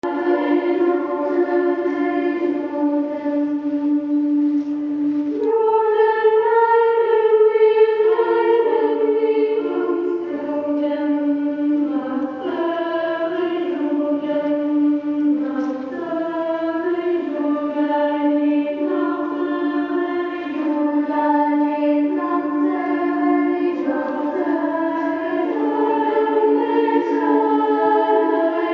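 Runway show music: choral singing in long held chords that shift to new harmonies every couple of seconds, with no beat.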